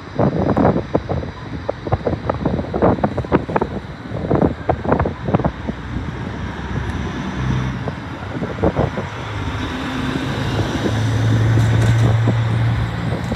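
Wind buffeting the microphone in gusts, then an E2-class tram approaching on its tracks, its running noise and a steady low hum growing louder toward the end.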